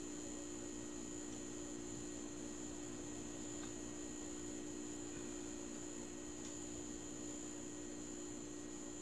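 A steady electrical hum with a high whine above it, unchanging throughout, and a few very faint ticks.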